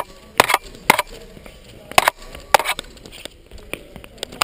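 Épée blades clashing: about six sharp metallic clacks at uneven intervals, picked up loud and close by a GoPro fixed on the épée's bell guard.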